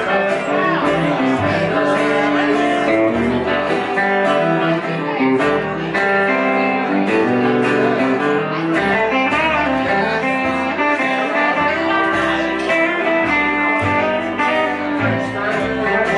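Live band playing a guitar-led instrumental passage, plucked and strummed guitar over an upright bass line.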